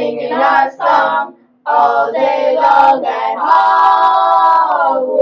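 Several voices singing together: short sung phrases, a brief break about a second and a half in, then a long held note for the last couple of seconds.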